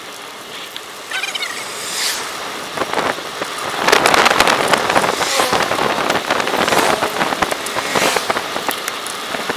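Wind buffeting the microphone of a bike-mounted camera while a road bike is ridden, played sped up. The rushing noise swells about four seconds in.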